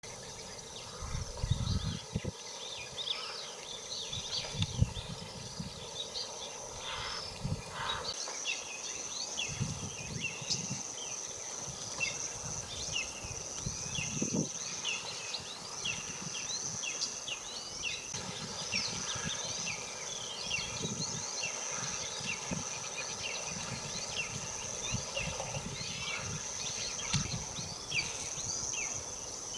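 Birds chirping in many short, quick calls over a steady high insect drone, with irregular low rustles and thuds that are loudest in the first few seconds.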